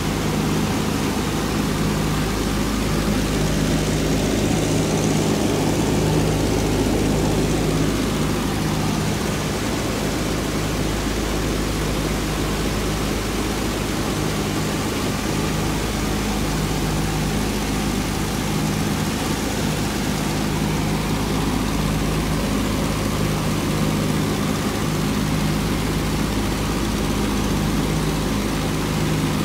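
Twin Wright R-2600 radial engines of a North American B-25 Mitchell bomber droning steadily in cruising flight, heard from inside the cockpit as a deep, even hum.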